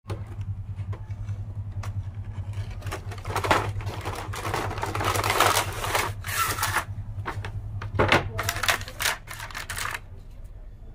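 Plastic packaging and a cardboard box being handled: crinkling, rustling and clicking of the clear plastic tray and card as it is pulled out and opened, stopping about ten seconds in. A steady low hum sits underneath.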